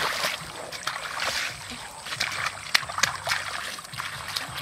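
Hands splashing and sloshing in shallow muddy water while feeling for eels and fish, in small irregular splashes.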